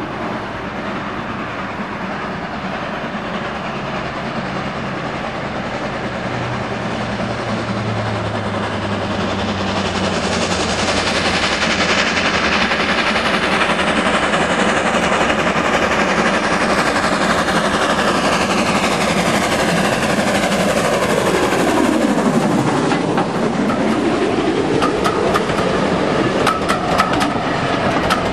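Gresley V2 three-cylinder steam locomotive 4771 'Green Arrow' approaching under steam with a train of teak coaches, growing steadily louder as it nears and passes. Near the end the coaches roll by with a rapid clickety-clack of wheels over rail joints.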